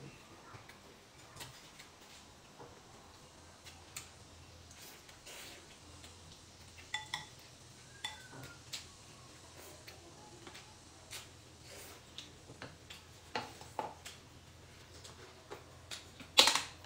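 Chopsticks clicking and tapping against ceramic noodle bowls during eating: scattered sharp clinks, a few with a brief ring. The loudest cluster of clinks comes near the end.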